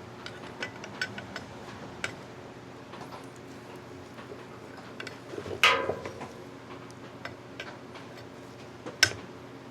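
Hand tools clicking against a stuck screw in a Kawasaki KZ400 stator cover as it is worked loose: scattered light metal ticks, a louder short rasp about halfway through and a sharp click near the end, over a faint steady hum.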